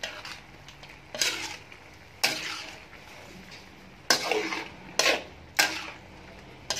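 Spatula scraping and tossing squid pieces in a metal wok during stir-frying: about six sharp scrapes at uneven intervals, with the food sizzling between them.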